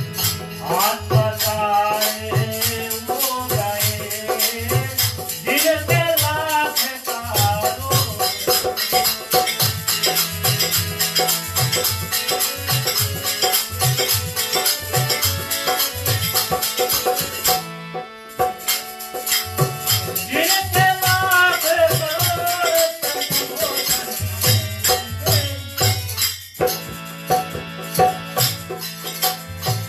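Live harmonium and dholak music, with a shaken jingling percussion keeping a fast beat. A man sings phrases over it near the start and again about two-thirds of the way through, and the instruments carry on between.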